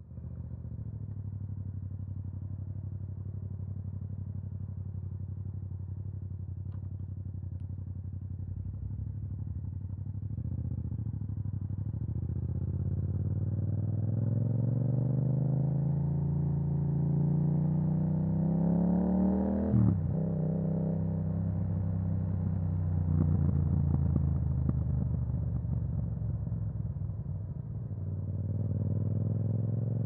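Yamaha MT-07's parallel-twin engine through an Akrapovic exhaust. It runs steadily at low revs at first, then revs climb for several seconds until the pitch drops sharply about two-thirds of the way through. After a brief dip it climbs again near the end.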